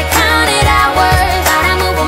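Background pop music with a steady beat about twice a second and a melody line over it.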